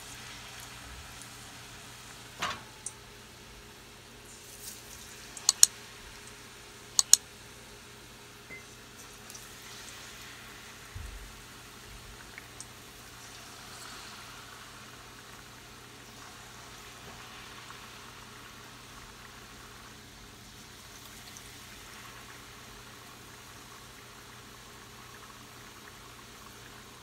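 Hot oil bubbling steadily in a pan as battered balls deep-fry. Several sharp clicks are heard between about two and seven seconds in, the loudest two pairs about five and a half and seven seconds in.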